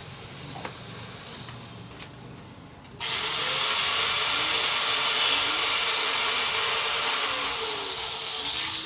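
Arc welding on the brooder's steel frame: a steady crackling sizzle that starts abruptly about three seconds in and runs for about six seconds before the arc is broken.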